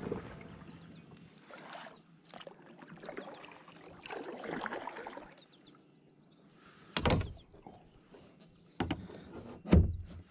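Handling noise in an inflatable kayak on the water: soft swishes of water and movement, then a few sudden heavy thumps on the kayak, the loudest just before the end.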